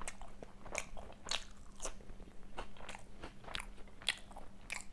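Close-miked chewing of a big mouthful of fish in mustard gravy: wet mouth clicks and smacks about twice a second.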